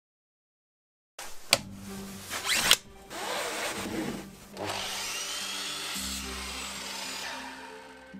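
A power tool running in short stretches after about a second of silence, with a sharp click, a louder burst and a brief rising whine, over soft background music.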